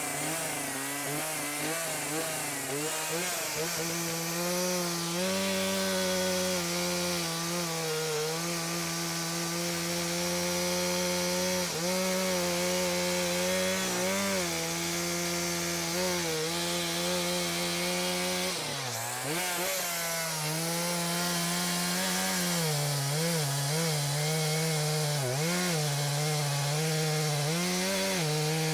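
Two-stroke chainsaw running at full throttle while cutting into the trunk of a large spruce tree. It holds a steady pitch that dips briefly several times as the engine eases or bogs in the cut, most deeply about two-thirds of the way through.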